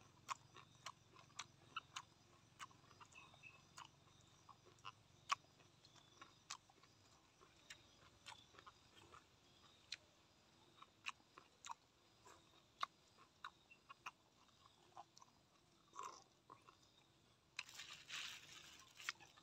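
Faint close-up chewing: soft, irregular wet mouth clicks and smacks as a man works through a mouthful of food. Near the end comes a long breath blown out through pursed lips.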